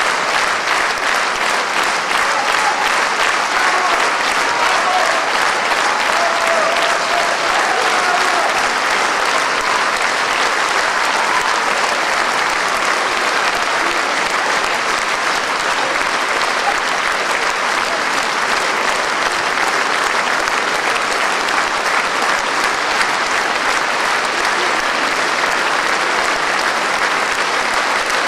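Large concert audience applauding steadily, a dense unbroken wash of clapping.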